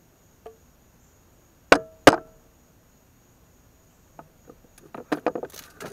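PVC pipe and tee fittings knocking: two sharp, hollow knocks with a brief ring about two seconds in, then a run of lighter clacks and handling rustle near the end.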